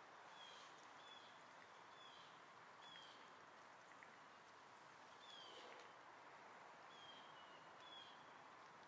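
Near silence: a faint steady hiss with about eight short, slightly falling high chirps from birds scattered through it.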